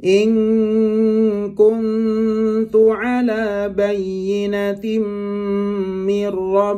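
A man reciting a phrase of the Quran in Arabic in a slow, melodic chant, holding long steady notes, with a short rise in pitch about three seconds in.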